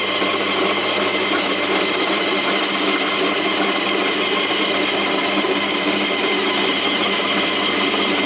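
Small electric vegetable shredder motor running steadily, shredding carrots. It makes an even hum with no let-up or change in speed.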